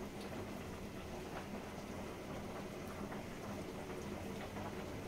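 Steady low background noise with a faint hum: kitchen room tone, with a few faint soft ticks.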